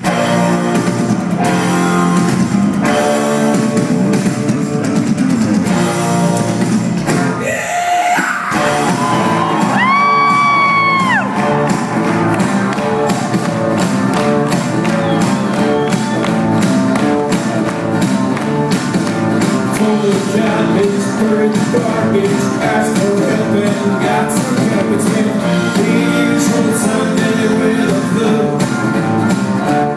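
Rock band playing live in a concert hall: electric guitars, bass and drums. About eight seconds in, a high voice rises and holds a long shout for about three seconds.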